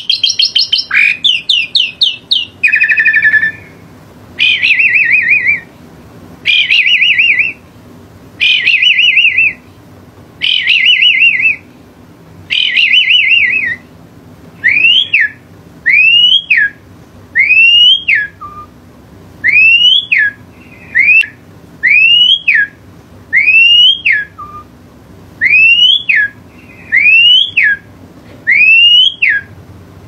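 A caged Asian pied starling (pied myna) singing. It opens with a fast chattering run, then gives repeated warbling phrases about every two seconds. From about halfway it switches to a steady series of single whistled notes that sweep up and drop back, about one a second.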